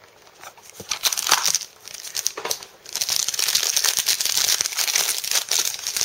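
Plastic wrapper of a trading-card booster pack crinkling as it is handled and opened by hand. Scattered crackles at first, then continuous crinkling from about halfway through.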